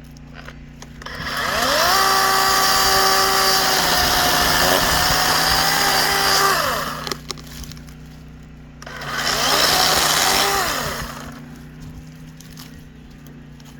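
DeWalt DCCS620B 20V brushless cordless chainsaw cutting pine in two runs, the first of about six seconds and the second of about two seconds later on. Each time the electric motor's whine rises as it spins up and falls away as it coasts down when the trigger is released.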